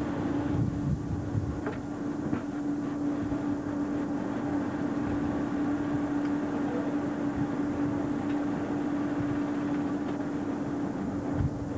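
Steady mechanical running noise with a constant hum, and a few scattered knocks, one sharper knock near the end.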